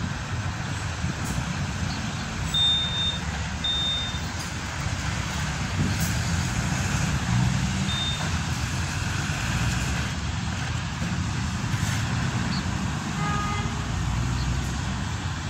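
Road traffic on a busy city avenue: a steady rumble of passing cars and trucks. There are a few short high beeps in the first half and a brief pitched horn-like tone about thirteen seconds in.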